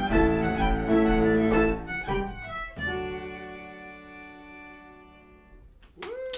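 Irish traditional band of fiddle, concertina, piano and bodhrán playing the last bars of a tune, then ending on a held final chord that rings and fades away over about three seconds. Right at the end a single voice whoops as the tune finishes.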